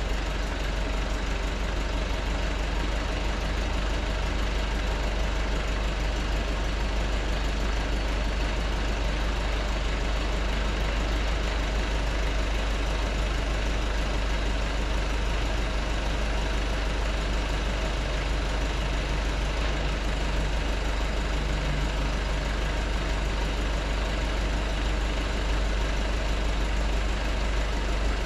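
Nissan Cabstar truck's diesel engine running steadily, powering the hydraulics of its Multitel truck-mounted boom lift as the boom is raised and swung.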